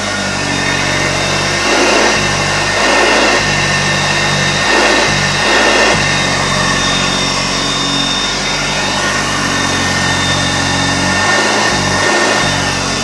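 1967 Hoover Junior 1334E upright vacuum cleaner running: its brushed motor gives a steady whine with a rushing noise that swells several times, about two, three, five and six seconds in and again near the end. The motor has freshly replaced carbon brushes and greased bearings, and the owner judges it to be sounding much healthier.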